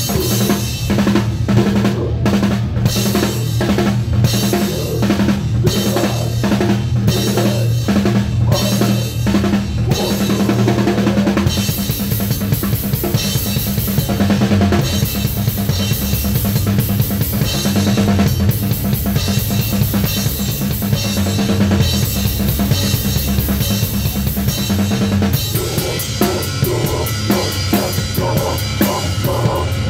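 Drum kit played hard and close up in a live band: rapid kick drum and snare over sustained low notes from the rest of the band. About 12 seconds in, cymbals crash and wash heavily, and near the end the drumming turns to a fast, even run of strokes.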